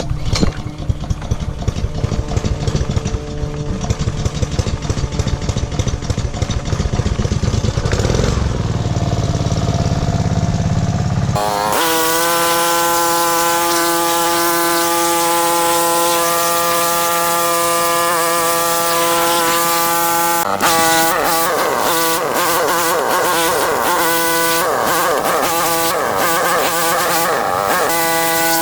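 Gas-engine pressure washer running steadily. About eleven seconds in it cuts abruptly to a loud, even hiss of the water spray over a steady engine tone, and the spray sound wavers in the last part.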